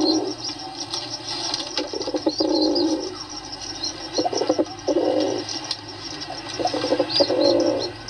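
Pigeons cooing: three rounds of low coos, each opening with a quick stutter and settling into a held coo. Faint high chirps of small birds sound in the background.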